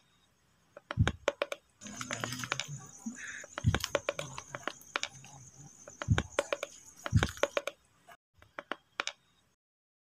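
A man's heavy thumps and scuffles on bare earth: four dull blows among quick clicks and rustling, with a thin high hiss through the middle, then the sound cuts to silence near the end.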